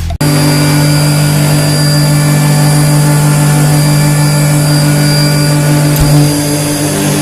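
Machine running steadily with a strong even hum and a faint high whine, with a single sharp knock about six seconds in. It is offered as an example of abnormal, unbalanced running that points to damage in some part of the machine.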